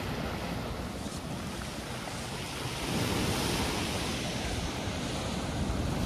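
Big sea waves breaking on a beach, with wind rumbling on the microphone; a wave breaks about halfway through and is followed by the long hiss of its wash.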